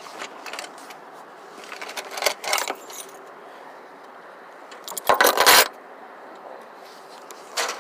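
Three short bursts of jangling, clattering rattles, like keys or small hard objects being handled, over a faint steady hiss.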